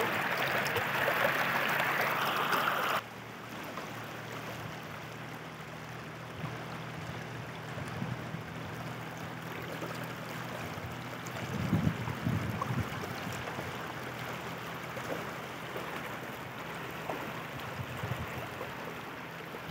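River water rushing and rippling past close to the microphone, loud for the first three seconds, then dropping suddenly to a softer, steady flow.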